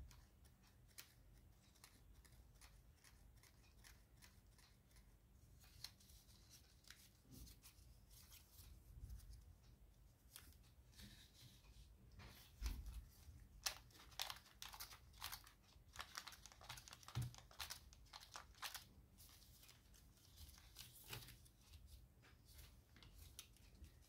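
Stiff folded origami paper crinkling and crackling as it is flexed and handled, in scattered short rustles that are busiest in the middle of the stretch, with a few soft knocks of the paper pieces on a wooden tabletop.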